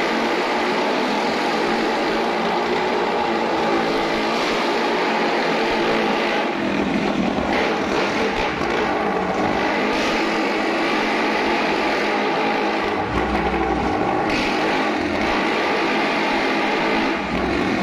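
Two motorcycles ridden round the vertical plank wall of a wall-of-death drum, their engines running hard together in a loud, steady, overlapping drone with no let-up.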